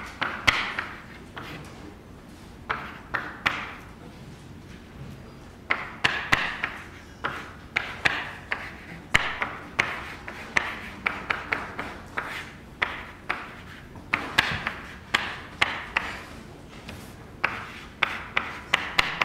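Chalk writing on a blackboard: irregular taps of the chalk striking the board and short scratchy strokes, coming in bursts with brief pauses between them.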